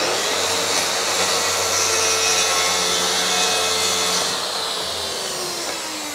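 Plunge track saw running through a cut along its guide rail, with a dust extractor drawing through the hose. About four seconds in the saw is switched off and its blade winds down, the tone falling in pitch.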